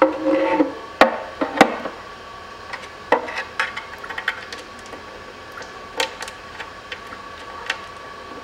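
Sharp clicks and knocks, a handful spread over several seconds, as the new filter is handled and screwed by hand onto the valve body of an Aisin 09D automatic transmission. A faint steady high tone sits under them.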